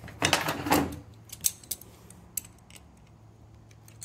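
Metal hand tools clattering as a pair of slip-joint pliers is picked up off the workbench, then a few scattered light metallic clicks.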